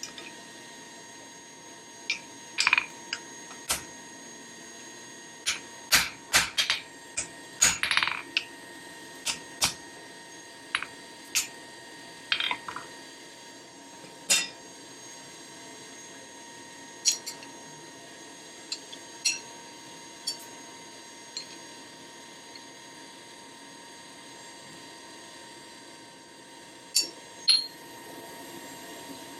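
Irregular metal-on-metal clanks and strikes of steel tongs, hammer and anvil during forge work, some with a short ring. They come thickly for the first dozen seconds, then sparse, with a pair near the end, over a steady hum.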